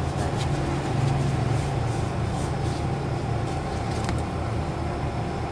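A steady low hum at an even level, with a few faint clicks in the first few seconds.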